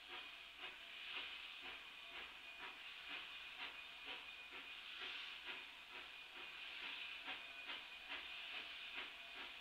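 Narrow-gauge steam locomotive chuffing as it starts its train away, with even exhaust beats about twice a second over a steady hiss, faint and distant.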